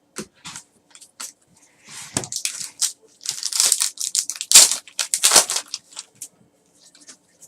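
Trading card pack wrapper and cards being handled, crinkling and rustling in short irregular bursts, busiest and loudest in the middle.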